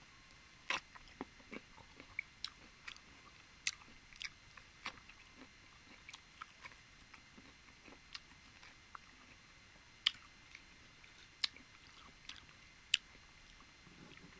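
Close-miked mouth sounds of a person eating: faint chewing with scattered sharp, wet clicks and smacks at an uneven pace, a few of them louder.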